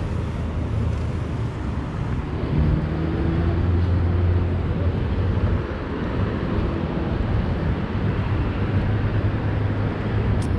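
Outdoor city ambience under a low, steady engine drone that swells for a few seconds about a quarter of the way in, then settles back.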